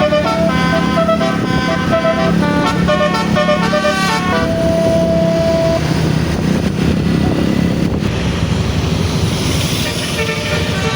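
Bus basuri horn playing a quick stepping melody, ending on one long held note about five seconds in, followed by steady engine and road noise.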